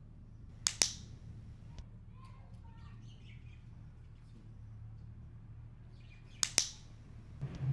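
Dog-training clicker clicked twice, about six seconds apart, each a sharp double click of press and release. Each click marks the moment the dog lies down on command, the signal that a treat follows.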